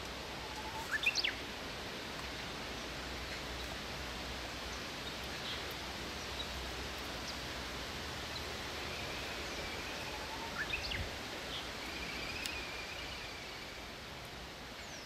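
Outdoor ambience: a steady hiss of background noise with short bird chirps about a second in and again after about ten seconds.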